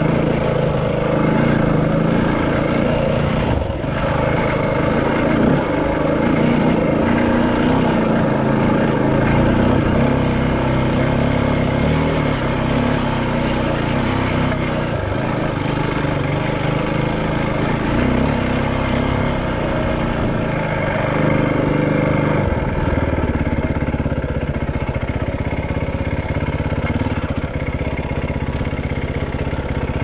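Dirt bike engine running under way on a gravel road, its pitch rising and falling with the throttle, over a steady rush of wind and tyre noise.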